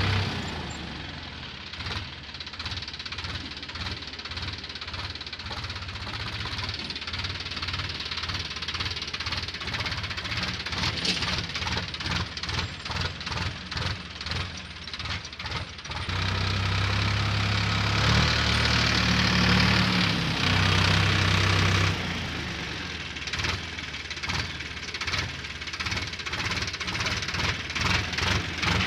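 Sonalika tractor's diesel engine working under load as it drags a levelling blade through manure heaps across a ploughed field. The engine beat pulses quickly and fades as the tractor pulls away, and grows louder and steadier for several seconds in the middle.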